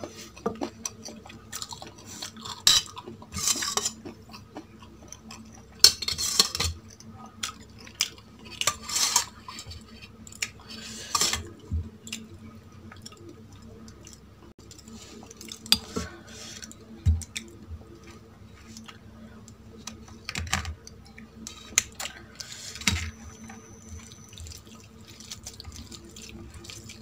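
Eating sounds from a meal of chicken curry and rice: irregular clinks and scrapes on a plate, spaced a few seconds apart, between quieter handling of the food.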